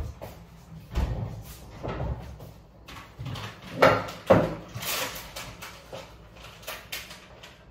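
Kitchen handling noise: a series of separate knocks and thuds as things are picked up and set down, with a louder pair near the middle and lighter clicks after.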